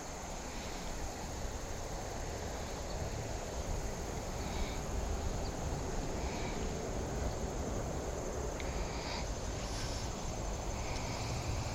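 Steady outdoor creekside background: a low, even hiss and rumble with a thin, high, steady insect drone and a few faint chirps.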